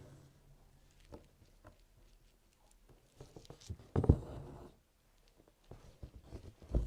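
Soft scratching and tapping of hand embroidery: a needle and crewel wool drawn through fabric held in a frame, with a louder knock about four seconds in and another near the end.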